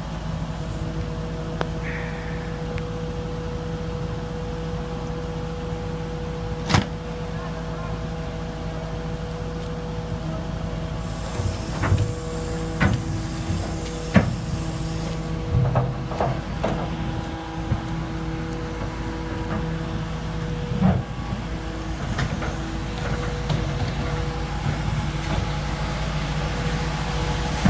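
Diesel engine of a Gradall 4300 II excavator running steadily with a low hum, with scattered sharp knocks and clanks, the loudest about 7 and 14 seconds in.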